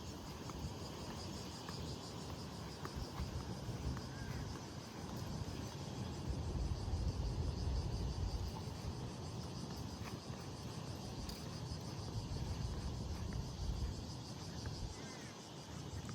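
Outdoor ambience: an uneven low rumble under a steady, high, pulsing insect chorus, with a few faint chirps.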